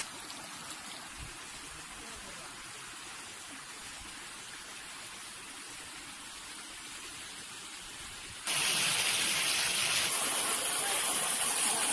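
Steady rushing of water flowing fast over rocks in a small stream. About eight and a half seconds in, the rush turns abruptly louder and brighter.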